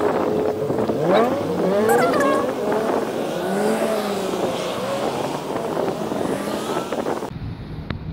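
Car engines in street traffic, their pitch rising and falling as cars pull away and slow down. About a second before the end the sound cuts abruptly to a steady low hum.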